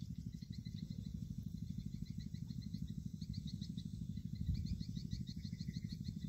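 Insects chirping in rapid trills, over a low, fast-pulsing rumble.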